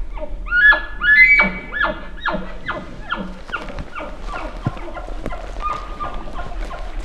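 Elk bugle call blown by a hunter, ending in chuckles: quick, falling grunting notes about two a second that grow fainter over several seconds.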